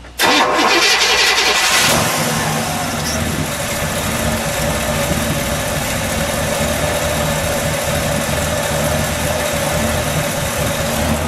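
A 1967 Buick GS 340's 340-cubic-inch V8 fires up with a sudden loud burst that flares for about two seconds. It then settles into a steady, good idle.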